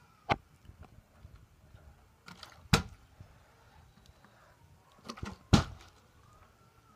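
Partly filled plastic water bottles being flipped and landing on carpet: a sharp thud about a third of a second in, a short run of knocks ending in a loud thud nearly three seconds in, and another run ending in the loudest thud about five and a half seconds in.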